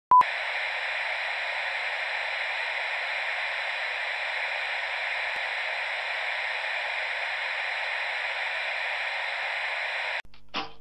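A short sharp beep, then a steady electronic static hiss, a sound effect for a glitch-style logo animation. The hiss cuts off suddenly about ten seconds in and is followed by a faint brief flicker of sound.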